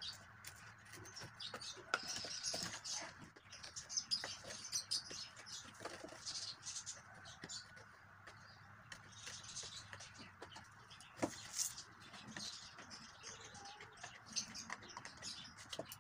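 Small scissors snipping through thin cardboard, an irregular run of crisp snips with the card rustling as it is turned.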